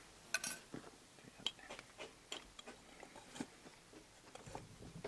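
Faint, irregular light metallic clicks and scrapes of a new piston ring being worked into the bore of a finned Saviem air-compressor cylinder to check its end gap.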